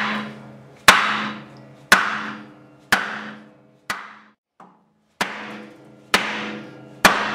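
Dead blow hammer striking a Honda CX500 chrome muffler, roughly one blow a second with a short pause about four seconds in. Each blow is followed by a ringing hum from the steel pipe as the muffler is driven further onto the exhaust so its mounting holes line up.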